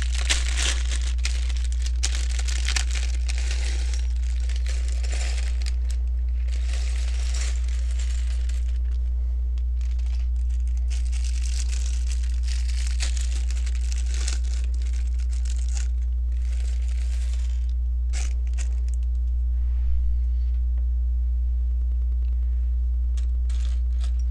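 Hands rustling and crinkling in several stretches of a few seconds each while handling the build's materials, with a few small clicks and taps later on. A steady low electrical hum runs underneath.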